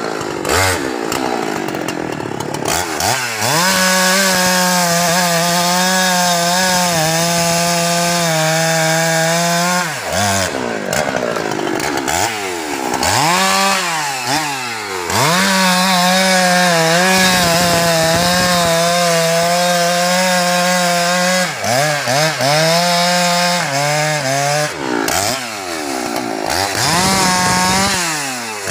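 Husqvarna 390 XP two-stroke chainsaw running at high revs while cutting through a teak log. Its engine pitch holds steady for long stretches and dips and climbs back several times as the throttle is eased and reopened between and during cuts.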